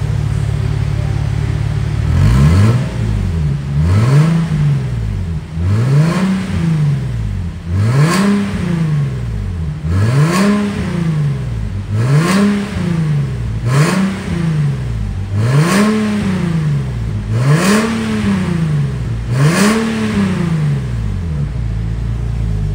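Nissan 370Z's 3.7-litre V6 idling, then revved in about ten quick blips roughly two seconds apart, each rising and falling in pitch, before settling back to idle near the end. This is heard through an aftermarket valved exhaust with its valve closed (Eco mode).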